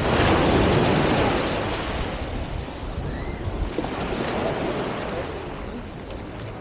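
Ocean surf breaking on a beach: a wave rushes in loudly at the start, then eases off into a steady wash.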